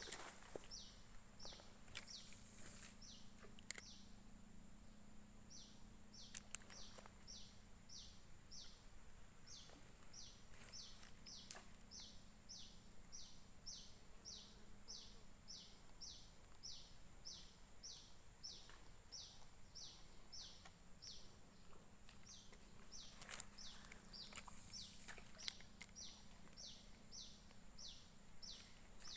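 Faint natural ambience: a long, even series of short high chirps at about two a second, pausing briefly near the start and again near the end, over a thin steady high buzz.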